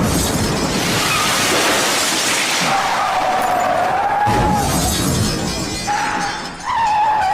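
Loud, continuous crashing with glass shattering, like a car-crash sound effect, over music. A wavering high tone runs through it around the middle and again near the end.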